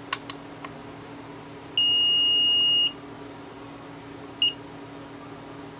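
Greenlee DM-210A digital multimeter's continuity beeper: a few clicks from its buttons, then one steady high beep about a second long, followed by two short beeps. The continuity beep sounds when it should not, the sign of a short inside the meter.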